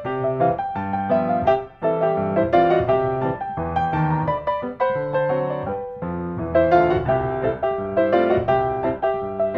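Background piano music: a busy run of notes, with a short break a little under two seconds in.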